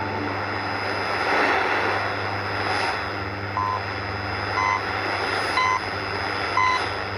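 Shortwave broadcast reception on an old 4-band transistor radio cassette recorder: steady static hiss over a low hum, the sound of a stable signal with modulation problems. From about halfway, short beeps come once a second.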